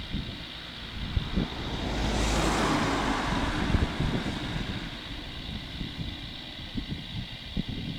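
C-130T Hercules' four Allison T56 turboprop engines with a steady high whine, buffeted by gusty wind on the microphone. A louder rush of wind swells about two seconds in and fades by four seconds.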